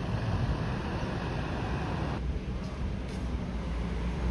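Steady low rumble of a moving vehicle, with a hiss above it that drops away about two seconds in.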